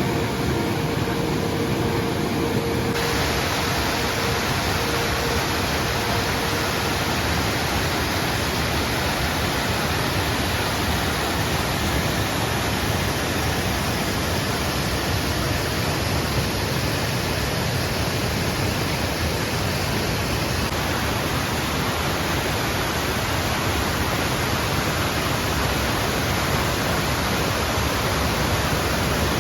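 Waterfall: a steady, dense rush of falling water. A faint held tone fades out in the first few seconds.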